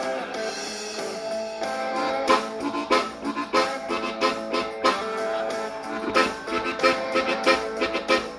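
Blues harmonica played with cupped hands. A held chord comes about half a second in, followed by rhythmic chugging phrases over a steady beat.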